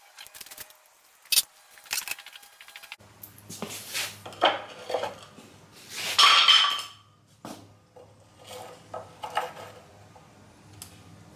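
A run of sharp clinks and knocks as metal tools and parts are handled and set down on a workbench, some ringing briefly. A steady low hum sets in about three seconds in.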